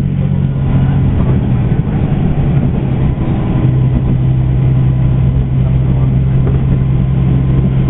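Diesel railcar's engine running under the floor, heard from inside the passenger cabin as a steady low drone with running noise. The drone wavers for the first few seconds and then settles into an even note.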